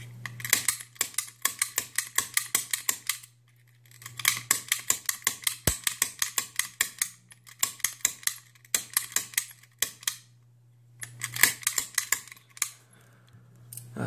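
A manual snap gun (pick gun) firing its needle into a brass pin-tumbler lock. It makes four runs of sharp clicks at about five a second, with short pauses between them, as the trigger is pulled again and again to knock the pins up while tension holds the plug. The lock has not yet opened.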